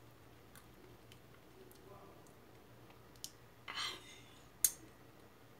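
A person eating a leafy arugula (gerger) salad from a forkful: faint mouth clicks and smacks while chewing, a short breathy sound about two-thirds of the way through, then one sharp click.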